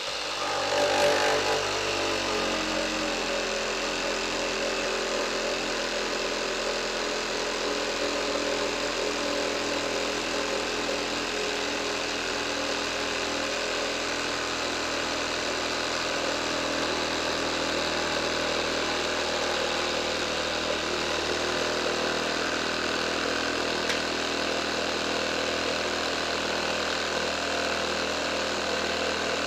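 Milwaukee M12 FUEL FJS 12-volt brushless cordless jigsaw sawing through a 57 mm thick board of dry ash, pendulum action on setting 2. Its note drops in pitch in the first couple of seconds as the blade takes the load, then holds steady. The saw is working hard in dense hardwood near its rated cutting depth.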